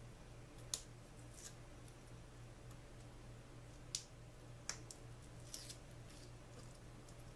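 Faint crafting handling noises: a handful of short, sharp clicks and ticks as strips of foam tape are handled and pressed onto the back of a paper die-cut, the loudest about four seconds in, over a steady low hum.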